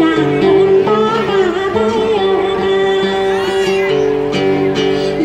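Tày hát then: a woman singing with ornamented, wavering notes while plucking a đàn tính, a long-necked gourd lute, in accompaniment.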